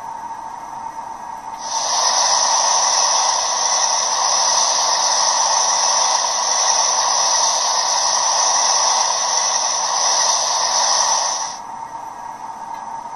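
Bachmann Sound Value DCC decoder in an HO-scale 2-8-0 steam locomotive playing its blower effect (function F4): a steady steam hiss from the model's small speaker. It starts about a second and a half in and cuts off sharply near the end, after about ten seconds.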